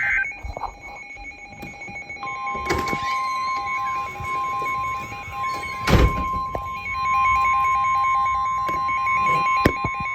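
NOAA Weather Radio warning alert: a pulsing electronic beep and a steady lower tone, joined about two seconds in by the long, steady 1050 Hz warning alarm tone that announces a new warning. A few sharp knocks sound over it, the loudest about six seconds in.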